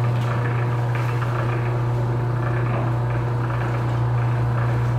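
Electric fondant sheeter's motor running with a steady low hum.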